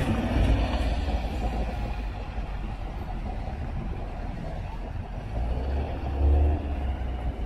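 Low, steady rumble of car engines, with one growing louder about six seconds in.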